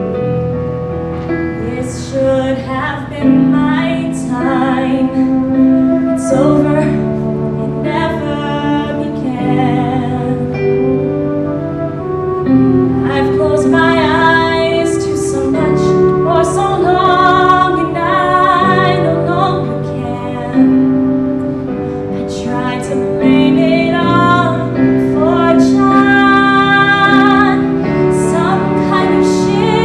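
A woman singing solo into a handheld microphone, with vibrato on her held notes, over an instrumental accompaniment of held low chords.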